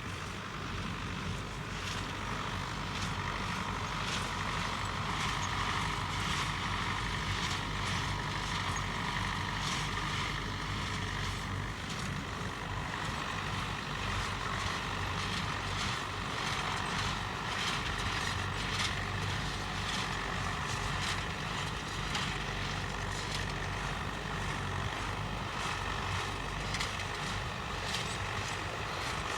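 1971 David Brown 990 tractor running steadily under load, pulling a New Holland 268 square baler, with the baler's mechanism clicking at a regular rhythm over the engine drone.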